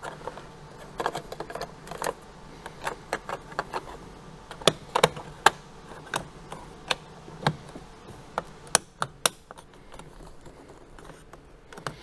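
Irregular light clicks and taps of plastic trim and a small screw being handled and fitted behind the interior door handle of a Toyota 4Runner's door panel, with the sharpest clicks between about four and ten seconds in.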